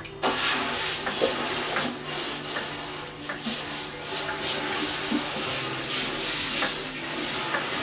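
Tap water running into a sink over cookware, a steady rush that starts just after the beginning and stops near the end, with a few light knocks of pots and pans.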